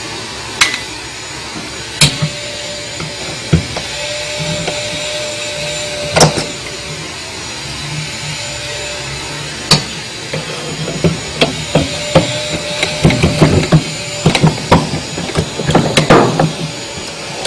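Hand tools and metal parts clicking and knocking while a washing machine's transmission mechanism is put back together. The knocks are scattered at first, then come in a quick run of clicks and taps over the last several seconds.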